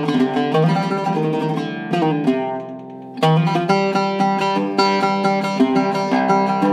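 Seven-course Iraqi-style oud with a cedar top and mahogany back, played in a quick run of plucked notes. About two seconds in, one note is left to ring and fade. A second or so later the playing starts again with a sharp attack.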